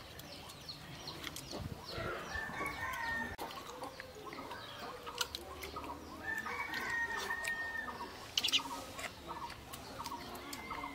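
Domestic chickens clucking, with two longer drawn-out calls, one about two seconds in and one about six seconds in.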